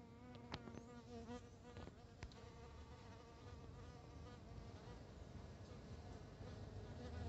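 Euglossa orchid bee buzzing in flight at the orchid flower: a faint, steady wing hum with a clear pitch and overtones, wavering slightly as the bee hovers and shifts.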